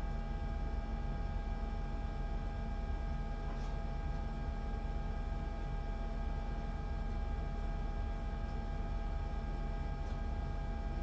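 Steady room hum: a constant low rumble with several steady tones above it, unchanging throughout, and no speech.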